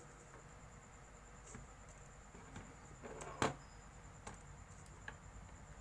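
Faint clicks and taps of tools working a motherboard during capacitor desoldering, with one sharp click about three and a half seconds in.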